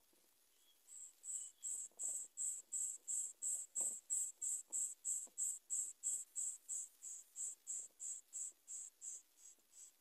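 An insect, cricket-like, chirping in an even high-pitched pulse about three times a second, starting about a second in and fading near the end. Faint soft ticks of nest material sound beneath it.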